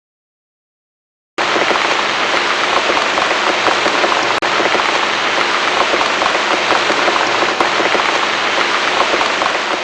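Steady, dense rainfall without thunder, cutting in suddenly after about a second and a half of silence.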